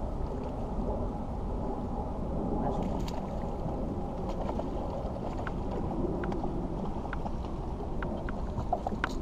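Steady low rumble of the boat's surroundings, with scattered light clicks and ticks from a spinning reel and line as a bass is reeled in and lifted toward the boat; the clicks come more often near the end.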